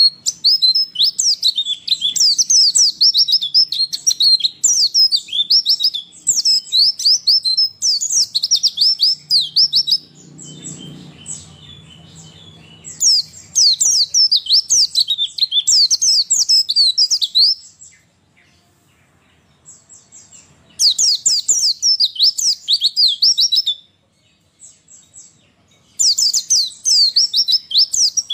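White-eye (pleci) twittering song: rapid, high, chattering notes in long bursts with short pauses between them. The uploader presents it as a female's call used to prompt males to answer and sing. A brief low hum sits between the bursts about ten seconds in.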